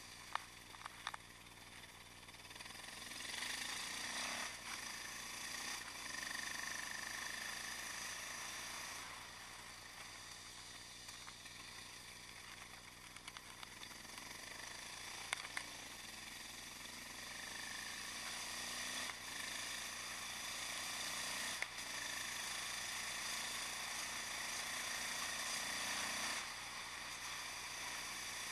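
Yamaha XT660X supermoto's single-cylinder engine with Mivv exhaust running as the bike rides along, heard from an onboard camera under a steady rush of noise. The engine gets louder a few seconds in and falls back, then builds again through the second half, with a few sharp ticks.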